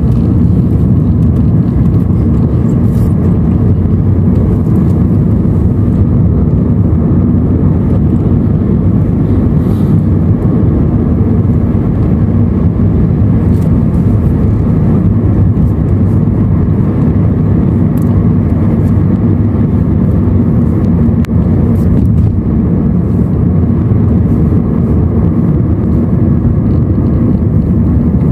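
Steady, deep rumble of engine and road noise inside a moving car's cabin.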